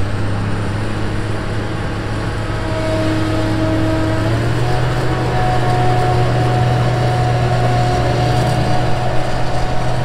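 Pickup truck engine running steadily as the truck drives slowly along a gravel lane, heard from a camera mounted on its hood; the engine note steps up slightly about four seconds in.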